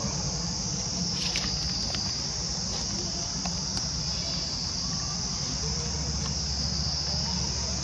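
A chorus of insects making a steady, high-pitched drone without a break, with a few faint ticks about a second in.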